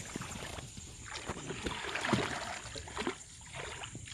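Dry grass rustling and crackling in irregular bursts as a hand rummages through it and picks up a freshwater mussel, with scattered small clicks.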